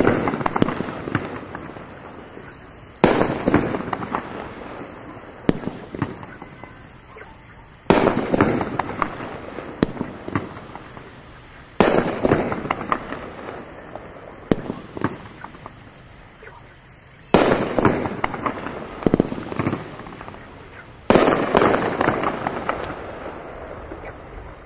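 Winda Speed Racer (P5398) ten-shot fireworks cake firing aerial shells. A loud report comes every four to five seconds, five in all, and each is followed by a few seconds of fading crackle.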